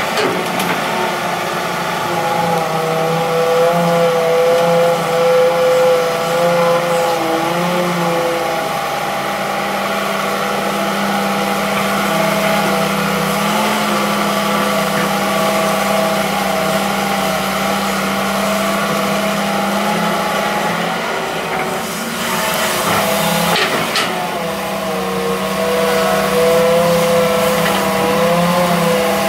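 Hitachi EX200-3 hydraulic excavator's diesel engine running steadily while it digs, its pitch sagging and recovering as the hydraulics load it. A few sharp knocks sound about three quarters of the way through.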